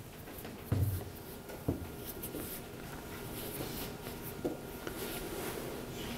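Pens scratching on paper and soft rustling in a quiet classroom as students copy notes, with three dull knocks, the loudest under a second in.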